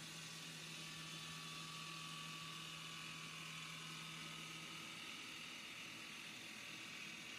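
Water-cooled diamond saw cutting through a stone block: a steady hiss of spray and grinding with a whir, and a low hum that fades out about halfway through.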